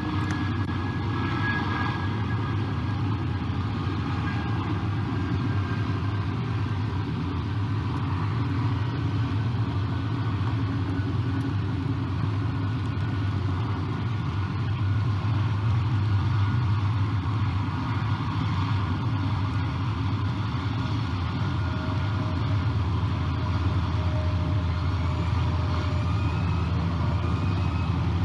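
Steady low rumble of distant motor vehicles, with a faint even hiss over it and a few faint short rising whistles near the end.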